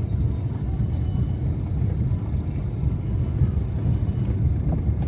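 Low, steady rumble of a moving vehicle, with a couple of faint ticks.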